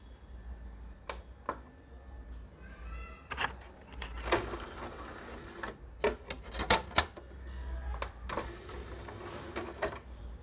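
Irregular mechanical clicks and knocks from handling an LG LPD103 boombox, as its buttons and controls are pressed, with a short pitched squeak about three seconds in.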